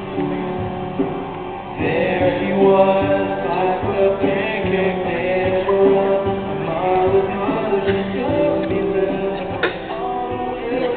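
A song: singing over instrumental accompaniment, which gets fuller and louder about two seconds in.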